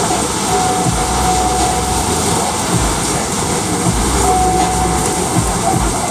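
Automatic tunnel car wash running: spinning cloth brushes scrub a car amid water spray and the steady noise of the machinery, with a faint whine that comes and goes.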